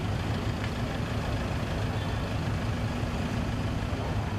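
A vehicle engine idling: a steady low rumble with no sudden changes.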